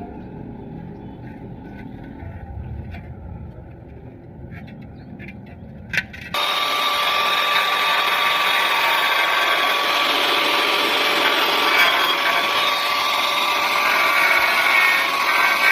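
A low rumble, then a sharp click about six seconds in, after which a power tool starts abruptly and runs steadily and loudly with a high whine.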